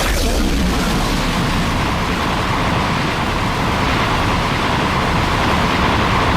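A loud, steady rushing noise, kaiju sound-effect material, that cuts in suddenly out of dead silence and holds level without a pitch or rhythm.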